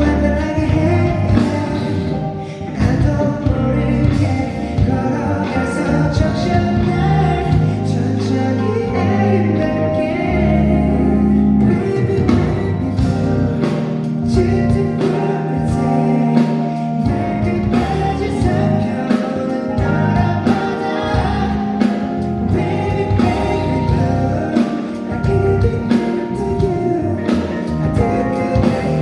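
Male vocalist singing a pop song live over amplified backing music with bass and a steady drum beat, heard through a concert PA.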